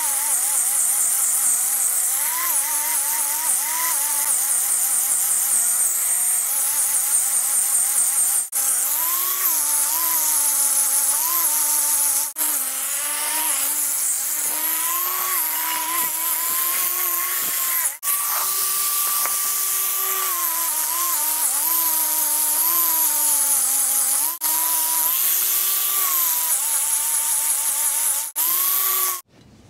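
Electric power tool running under load against a brake drum's shoe surface, cleaning off flash rust; its pitch sags and recovers as it bears down. The noise breaks off for an instant about five times.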